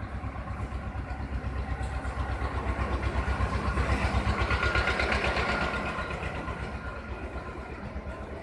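A motor vehicle's engine with a rapid, even thudding beat, getting louder to a peak about halfway through and then fading again as it passes by.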